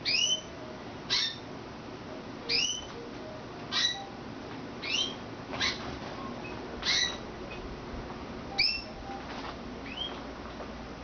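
Canary giving a short, upward-sweeping call note over and over, about nine times, roughly once a second.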